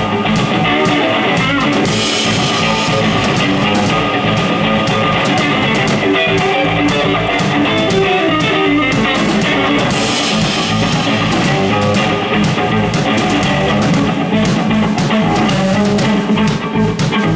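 Live rock band playing loudly: electric guitar over a drum kit, with the cymbals swelling about two seconds in and again around ten seconds in.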